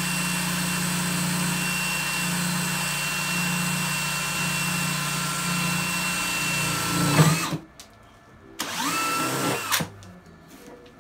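Cordless drill running at a steady pitch for about seven seconds, then winding down. A second short run follows about a second later.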